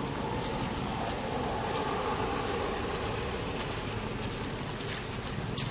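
Steady engine hum of a motor vehicle, swelling slightly about two seconds in, with a few faint high chirps.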